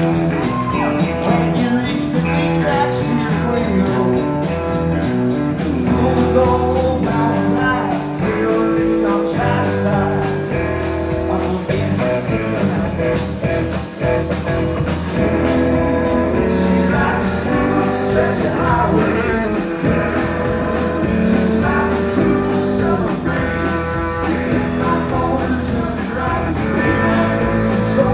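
Live band playing: electric guitar, electric bass and drum kit keep a steady beat while a man sings into a microphone over them.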